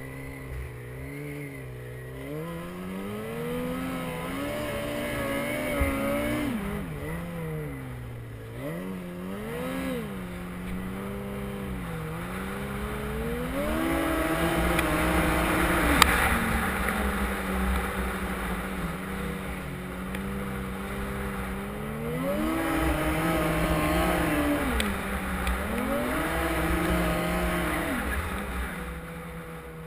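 Yamaha Apex snowmobile engine revving up and down repeatedly while riding, held high for several seconds at a time in the middle and again near the end before easing off.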